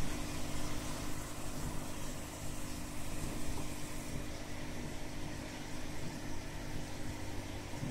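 Steady low mechanical hum with a constant hiss over it, unchanging throughout.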